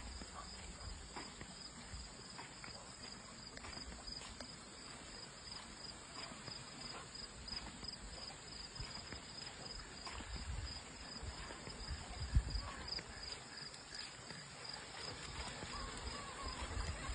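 Steady high-pitched insect chorus of crickets or similar, with scattered low thumps, the loudest about twelve seconds in.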